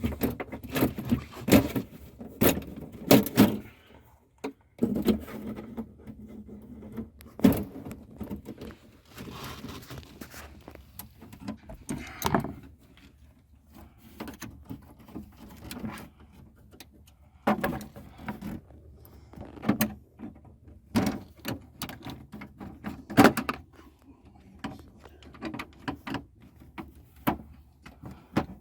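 Irregular clicks, knocks and rattles of hand tools and small screws being handled as a throttle position sensor is refitted to a truck's accelerator pedal.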